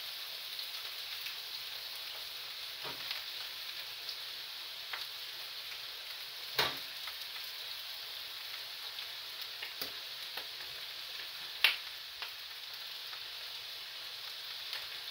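Sausages sizzling steadily in a frying pan on medium heat as their casings brown. A few sharp clicks sound over the sizzle, the loudest about six and a half seconds in and again near twelve seconds.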